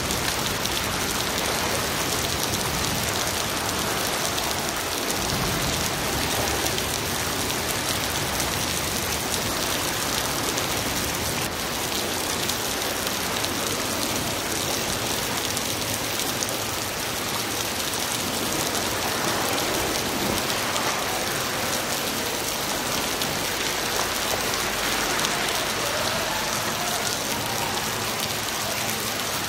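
Steady rain falling, heard as an even hiss without letup.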